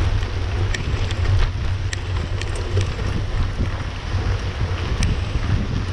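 Wind buffeting the microphone of a camera on a mountain bike ridden at speed on a dirt road, with a steady low rumble and occasional sharp clicks.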